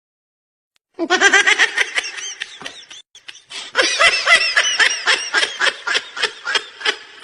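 A person laughing in quick, rapid 'ha-ha' pulses. The laughter starts about a second in, breaks off briefly around the middle, then picks up again in a second long run.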